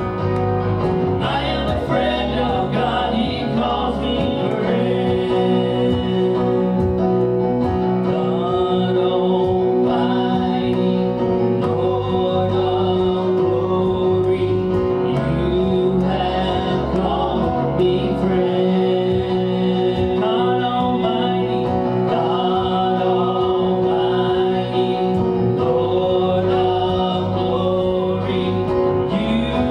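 Gospel worship music: singing with instruments, continuous and steady.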